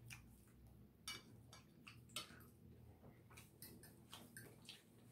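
Faint, irregular clicks of someone eating: mouth sounds of chewing and a metal fork touching a plate, over a faint steady low hum.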